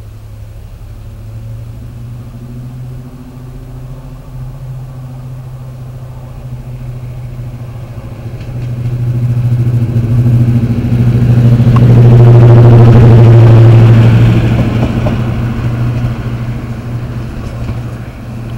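Class 55 Deltic diesel locomotive running light engine, its twin Napier Deltic two-stroke engines giving a deep steady drone. It grows louder as the loco approaches, is loudest as it passes close about twelve seconds in, then fades as it draws away.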